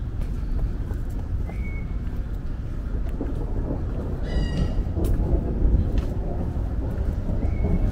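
Steady low rumble of city street traffic, with a few short high-pitched chirps on top: one about a second and a half in, a longer ringing one around four seconds in, and another near the end.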